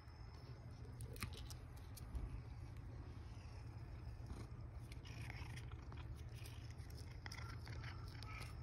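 Faint sounds of a cat at close range sniffing and licking at a lickable treat pouch: soft scattered mouth clicks over a low steady rumble.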